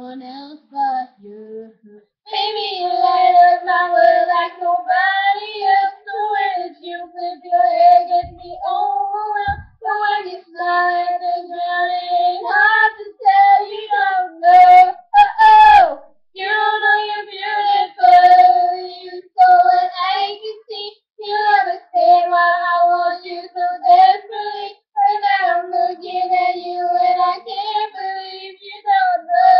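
Young girls singing a pop song, with long held notes broken by short pauses for breath, starting about two seconds in.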